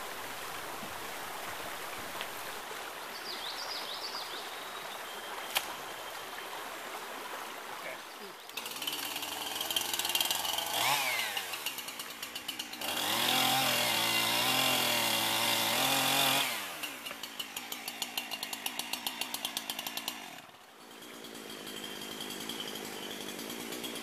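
Two-stroke chainsaw starts about eight seconds in after a stretch of steady hiss. It revs unevenly, then runs at high revs while cutting through a log for about three seconds. It drops back to a sputtering, pulsing idle and shuts off just after twenty seconds.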